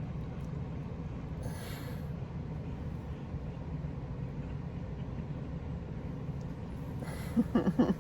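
A steady low hum, like a running fan or appliance, with a short hiss about one and a half seconds in and a brief voice-like sound near the end.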